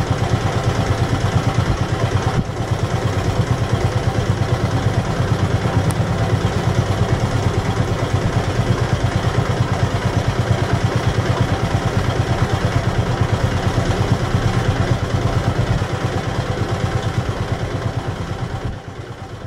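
A boat's diesel engine running steadily, with a fast, even throb, dropping away and fading out near the end.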